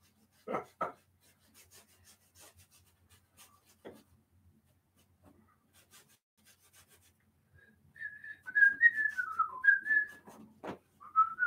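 A man whistling a few wavering notes of a tune that drift down in pitch, starting about eight seconds in and picking up again briefly near the end. Before that there is only faint rubbing and tapping of a paintbrush on canvas.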